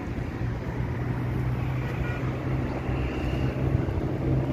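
Road traffic on a winding hill road: passing vehicle engines make a steady low hum that grows gradually louder.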